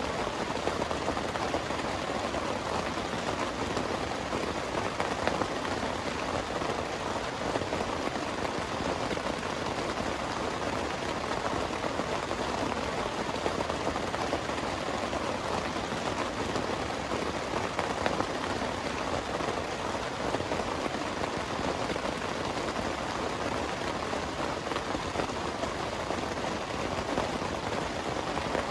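Heavy rain falling steadily, an even hiss of drops that does not let up.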